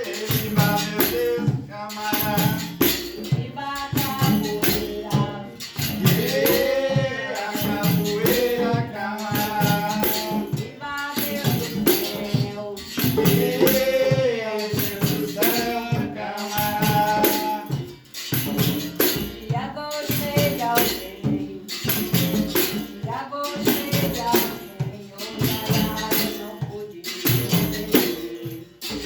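Capoeira music with singing. A berimbau is struck in a steady rhythm while its caxixi shaker rattles along.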